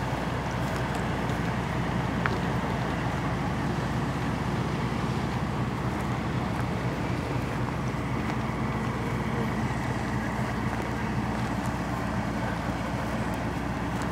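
Large diesel truck engine idling steadily, a low even hum with no change in speed.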